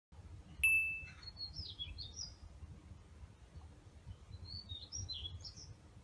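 A wild songbird singing two runs of quick, high warbling notes, the second about three seconds after the first, over a steady low rumble. A single short, high ringing tone sounds about half a second in and is the loudest moment.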